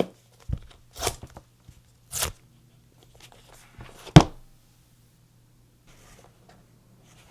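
Paper packaging being torn open by hand: several short tearing and rustling strokes, the longest about two seconds in. A sharp knock about four seconds in is the loudest sound, followed by faint handling noise over a steady low hum.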